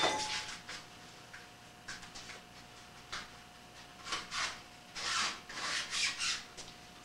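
Sheet-metal parts of a homemade still knocked and scraped together as they are fitted: a clunk at the start, then a run of short rubbing scrapes about four to six seconds in.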